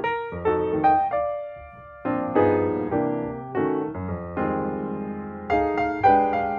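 Background piano music: notes and chords struck about every half second, each ringing and fading, with a brief lull about two seconds in.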